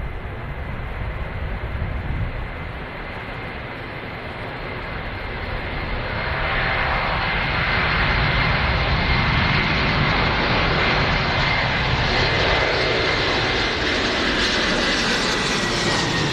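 Turbofan engines of an Antonov An-225 Mriya at takeoff power: a steady jet rush with a high whine over it, growing louder about six seconds in as the aircraft climbs out. Near the end the whine falls slightly in pitch.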